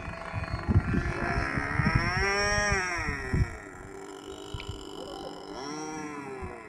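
Graupner Epic Victory RC model plane's motor and propeller whining as it flies past, the pitch swelling up and falling away twice. Wind buffets the microphone in the first half.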